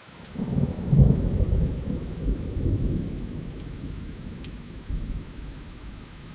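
A rolling thunderclap over steady rain: a deep rumble swells in about half a second in, is loudest about a second in, then slowly dies away with smaller swells, while the rain hisses underneath.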